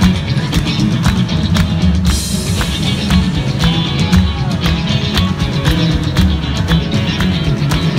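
Live rock band playing an instrumental passage: electric guitars over drums keeping a steady beat, with a cymbal crash about two seconds in.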